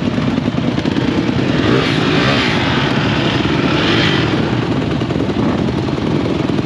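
Off-road motorcycle engines running, with a dense fast low pulsing. The sound grows louder and brighter for a couple of seconds in the middle.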